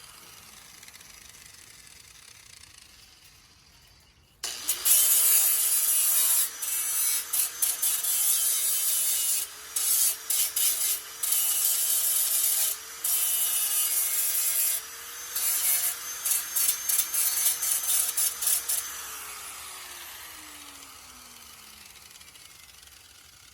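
Angle grinder switched on about four seconds in and grinding down flux-core welds on steel, with a steady whine under the grinding noise and many brief breaks as the disc lifts off the metal. It is switched off near the end and its whine falls away as the disc spins down.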